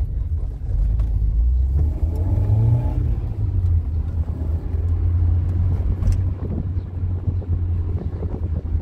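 Steady low rumble of a car driving, with a short rise and fall in engine pitch about two seconds in.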